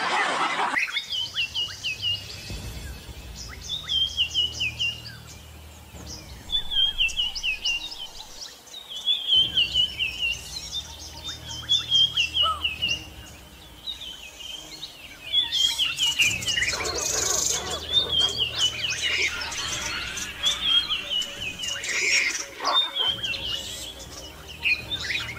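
A bird calling over and over, each call a short run of stepping, descending chirps, repeated every second or two over a low rumble. A loud rush of noise fills the first second, and another broad surge of noise comes about sixteen seconds in.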